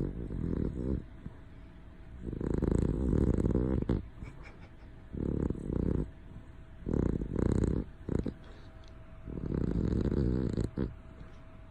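A sleeping pet snoring loudly: rough, rattling snores, each about a second long, coming every two seconds or so, with quiet breaths between.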